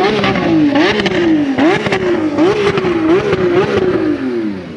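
Lamborghini Sián's naturally aspirated V12 revved in a run of quick throttle blips while the car rolls off: the engine note jumps up sharply and sags back five or six times, then falls away near the end.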